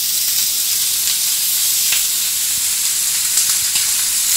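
Raw burger patties sizzling on a hot ridged grill pan, a steady high hiss as the meat starts to sear. A few light clicks sound over it, around when tongs set the second patty down.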